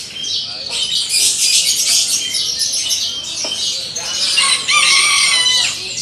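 A rooster crowing, one long call starting about four seconds in, over a constant chatter of chirping caged songbirds.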